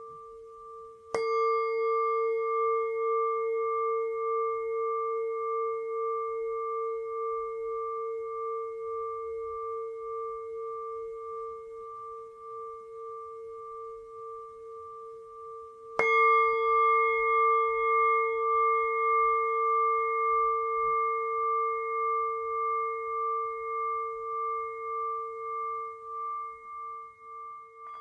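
Singing bowl struck twice, about a second in and again about fifteen seconds later, each time ringing on for many seconds with a slow pulsing wobble as it slowly fades.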